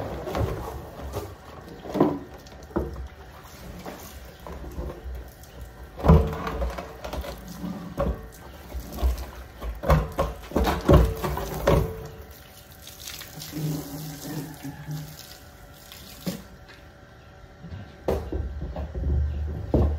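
Garden-hose water spraying and splashing on plastic silage drums being rinsed out, with repeated hollow knocks and thumps as the drums are handled and set down.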